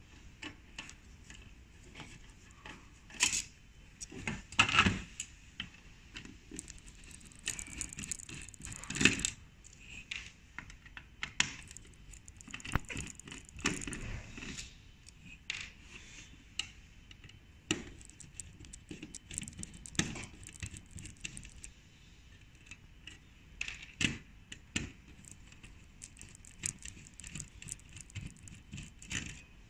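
Hand screwdriver undoing small screws from a printer mainboard's sheet-metal tray: scattered metallic clicks, scrapes and light rattles, with a few louder knocks.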